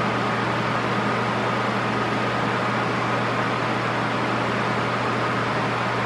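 Arno VE90 X-Treme 9 40 cm, 9-blade desk fan running at top speed: a steady rush of air with a constant low hum and a faint steady whine.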